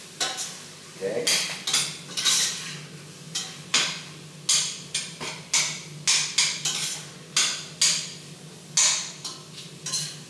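A metal utensil clinking and scraping against a stainless steel pot as the food in it is stirred, in irregular strikes about one or two a second.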